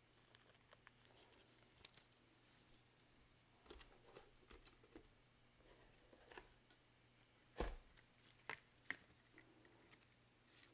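Near silence with faint handling noises: gloved hands sliding a trading card into a rigid plastic top loader, with light plastic clicks and taps. The clearest knock comes about seven and a half seconds in, and two smaller ones follow about a second later.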